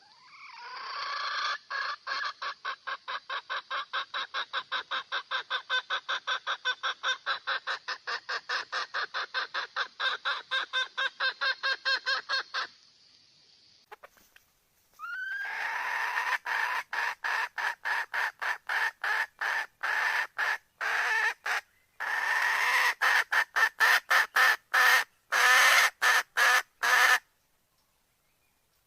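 Red junglefowl hen calling a cock: a long run of quick clucks, about four a second, for some twelve seconds. After a short pause a second run of clucks comes in short bursts and stops near the end.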